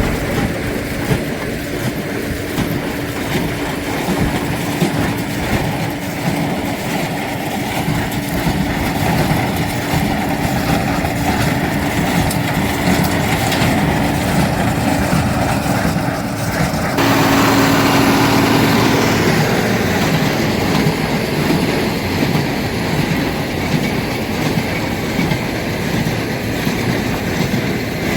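John Deere 4055 tractor's six-cylinder diesel running under load, pulling a John Deere 338 small square baler as it packs and ties wheat straw, with the baler's mechanical clatter over the engine. The sound changes abruptly about seventeen seconds in and is a little louder for a few seconds after.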